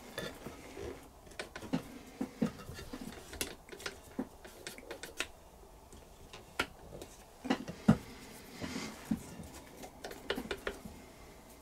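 A cotton swab scrubbing around the metal hook race of a Singer 201K sewing machine. It makes quiet, irregular small clicks, taps and scratches as it works out dust and thread fluff.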